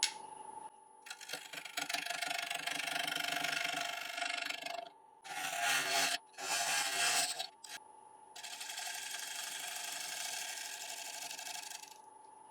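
A 3/8 inch bowl gouge cutting the rim of a damson bowl blank spinning on a wood lathe at 700 RPM, truing up the out-of-round rim. There are four cutting passes, a long one, two short ones and a long one, over the lathe's steady whine.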